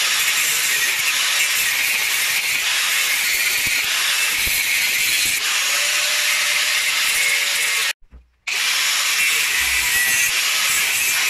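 Makita angle grinder running with its disc pressed against steel, a steady high grinding hiss. The sound drops out suddenly for about half a second about eight seconds in, then resumes.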